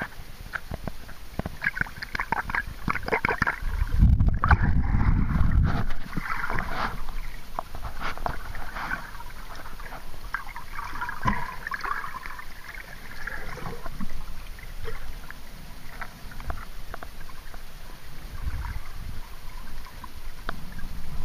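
Water moving against a camera held underwater: gurgling and bubbling with many crackling clicks. A loud low rumble comes in about four seconds in and lasts about two seconds.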